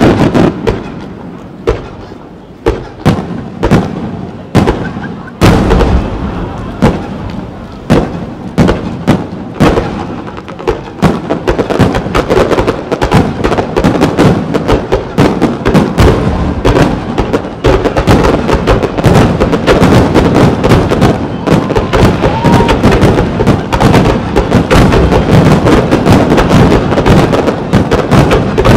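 Aerial firework shells bursting overhead. They begin as separate booms a second or so apart and build into a dense, continuous barrage of rapid bursts through the second half.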